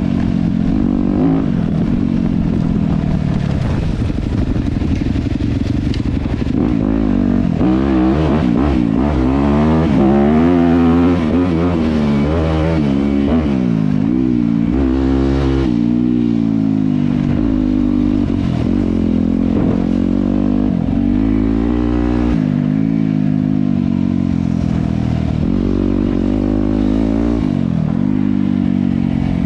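Dirt bike engine under way, its pitch climbing and dropping again and again as the throttle is opened and closed.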